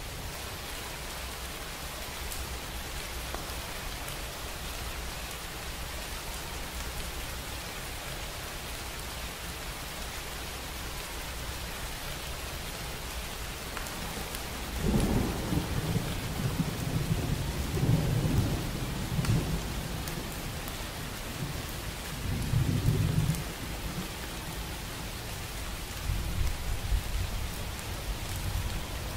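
Steady rain falling, an even hiss. About halfway through, thunder begins rolling in low rumbles that swell and fade several times, loudest near the end of the thunder's first surge and twice more after.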